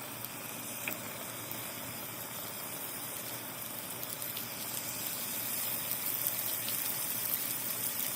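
Chicken rolls frying in butter in a pan: a steady sizzle that slowly grows louder, with small crackles and pops in the second half.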